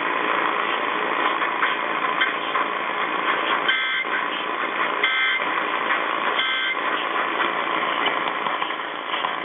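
Three short bursts of Emergency Alert System SAME data tones, each about half a second and about a second and a half apart, over steady radio hiss. This is the end-of-message code that closes an EAS test.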